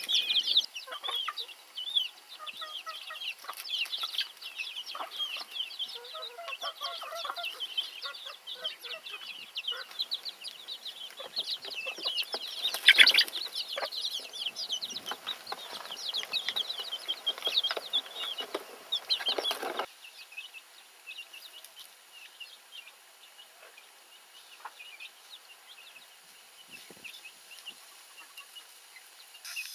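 A flock of domestic chickens: chicks peeping in rapid high chirps over hens' lower clucking, with one loud sudden sound about halfway. About two-thirds of the way through the sound drops abruptly and the peeping goes on faintly.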